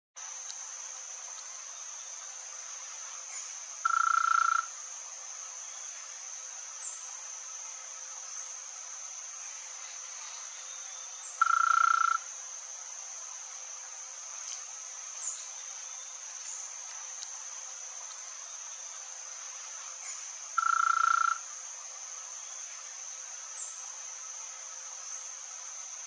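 A steady, high-pitched drone of insects runs throughout. Three loud, short, flat calls come about eight seconds apart, with faint short chirps in between.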